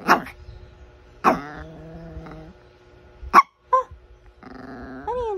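Small chihuahua-type dog grumbling and yapping: a few short sharp yaps and two longer growly, drawn-out calls, the last bending down in pitch. It is the dog demanding a belly rub.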